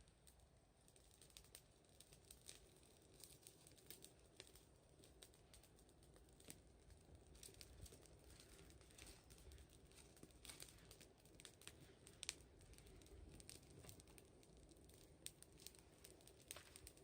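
Wood fire crackling faintly, with small irregular pops and snaps.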